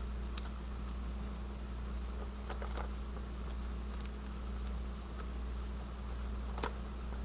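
Scattered light clicks and taps of paper pieces and dimensional foam adhesives being handled on a craft table, a few seconds apart, the loudest near the end, over a steady low electrical hum.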